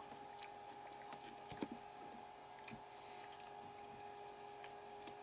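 Quiet steady hum with a few faint clicks and mouth noises of someone chewing a bite of Big Mac.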